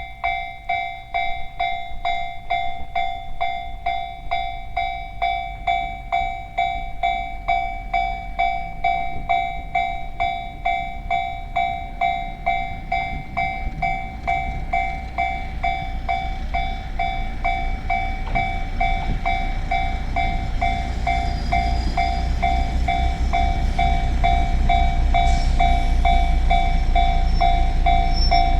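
Japanese level-crossing alarm ringing its 'kan-kan' strokes about twice a second, as a train approaches. The train's low rumble grows louder through the second half.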